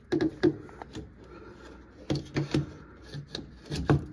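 Hard plastic knocks and rubbing as a Whirlpool Duet washer's drain pump is worked loose and slid out of its housing, with several short clunks spread across the few seconds.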